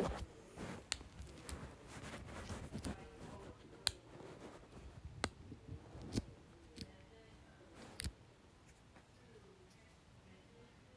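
Irregular sharp clicks and light taps of small objects being handled, about seven of them over the first eight seconds, then quieter.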